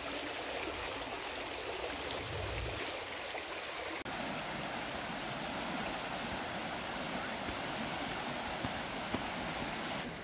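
Flowing stream water running steadily, with a brief break about four seconds in.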